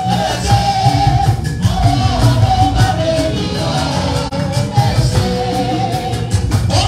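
Church music: singing over a steady beat with heavy bass.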